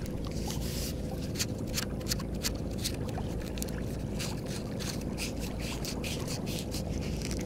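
Wind rumbling on the microphone at the water's edge, with a run of sharp, irregular clicks roughly twice a second.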